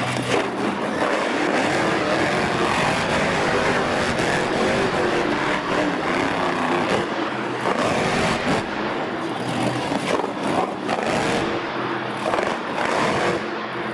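Monster truck engine revving loudly and continuously as the truck drives over crushed cars and spins donuts on the arena floor.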